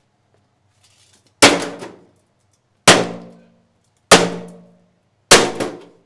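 Four heavy sledgehammer blows on the sheet-steel casing of a gutted Homemaker microwave, about one and a half seconds apart. Each is a loud metallic clang that rings and dies away.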